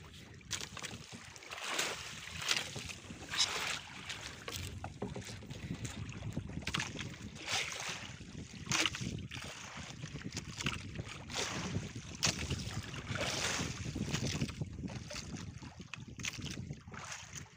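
Sea water lapping and sloshing against the hull of a small outrigger boat, in uneven surges, with wind buffeting the microphone.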